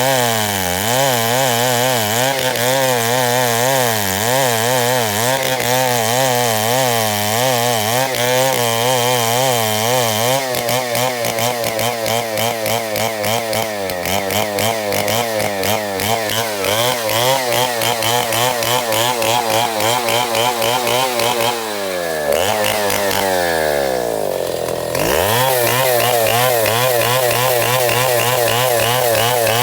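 Chainsaw running at high revs, its engine pitch wavering up and down. About 22 seconds in the revs fall away steeply, then rise back to full speed some three seconds later.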